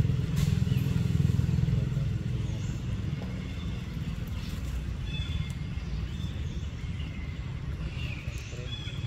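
Low, steady rumble of a motor engine running, louder for the first two seconds and then easing off, with a few faint, short, high chirps over it.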